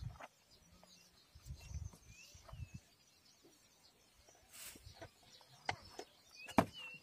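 Fishing net and freshly caught fish handled over a styrofoam float: scattered rustles, knocks and clicks, the loudest a sharp knock near the end. A bird calls with short curving chirps about two seconds in and again near the end.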